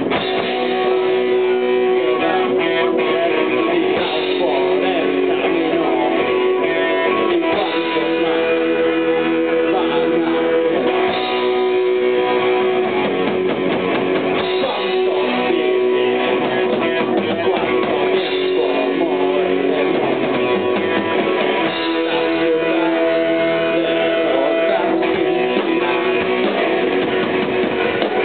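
Rock band playing live, an instrumental passage of electric guitars, bass guitar and drum kit.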